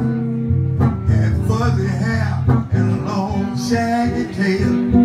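Live electric guitar playing on a red semi-hollow-body guitar: plucked single notes and chords in a blues style, with some bent notes in the middle.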